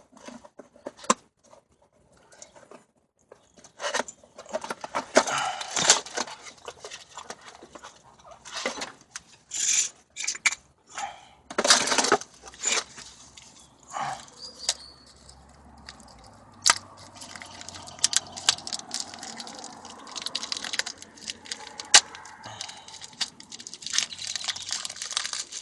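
New brake pads being unpacked and handled: irregular tearing, rustling and crinkling of packaging, with a few sharp clicks.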